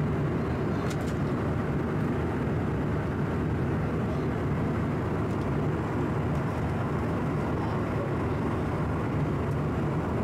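Steady cabin noise of a Bombardier CRJ-900 regional jet in cruise: an even, low rushing hum of airflow over the fuselage and its rear-mounted turbofan engines.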